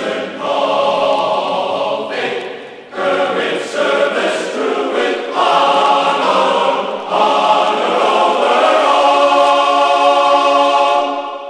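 Background choral music: a choir singing held chords that change every couple of seconds, fading out near the end.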